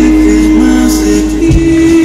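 Live band music: electric and acoustic guitars, bass and drums playing under one long held note, the bass shifting to a new note about a second and a half in.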